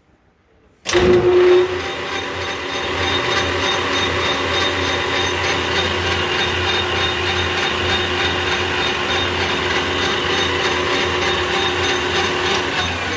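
Clausing Colchester 13-inch gearhead lathe starting up about a second in, then running steadily with its spindle at 900 RPM on the high speed of its two-speed motor; a low motor hum under several steady tones from the gearing.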